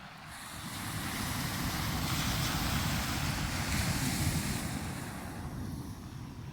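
Black Sea waves breaking on the shore: a surging hiss that swells up over the first two seconds and dies away toward the end, with wind rumbling on the microphone.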